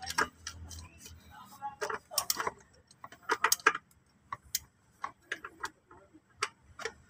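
Ratchet wrench clicking as it turns a 22 mm deep socket on the aircon belt idler adjuster bolt, loosening it to slacken the A/C belt. Sharp metal clicks come at an uneven pace, about two a second.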